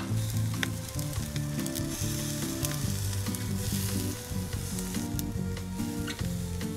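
Freshwater drum fillets sizzling on the wire rack of a tabletop butane grill, a steady hiss with scattered small crackles as the pieces are turned with chopsticks. Quiet background music with a low, stepping bass line plays underneath.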